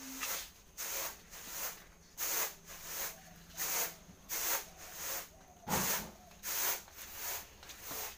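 A toddler's plastic sandals scuffing and slapping on a concrete floor with each step: a steady run of short hissy scuffs, about one and a half a second, with a heavier one near six seconds in.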